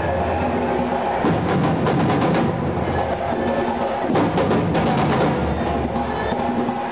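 A street percussion group playing a driving rhythm on large metal-shelled drums, with sharp stick strikes over deep drum beats.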